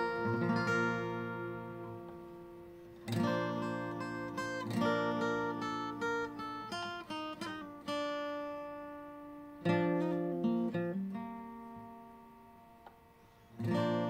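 Steel-string acoustic guitar, capoed, played with a pick: chords struck every few seconds and left to ring and fade, with a few quick single notes in between. The sound dies away almost completely just before a new chord is struck near the end.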